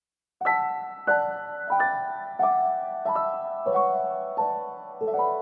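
Gentle background piano music: chords struck about every two-thirds of a second and left to ring and fade, starting about half a second in.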